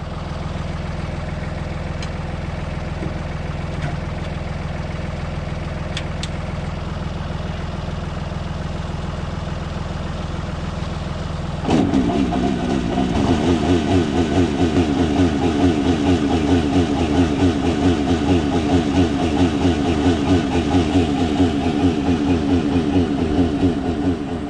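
Steyr tractor engine running steadily, driving the vacuum pump of a slurry tanker. A little before halfway the engine suddenly speeds up and the sound becomes louder, with a fast, even throbbing, as the pump works to draw slurry up from the pit into the tank.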